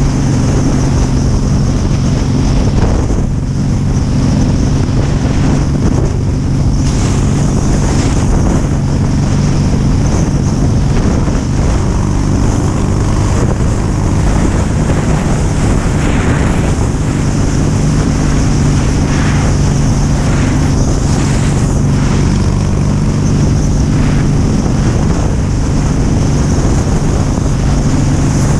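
Cruiser motorcycle engine running steadily at road speed, with heavy wind noise on the microphone from riding.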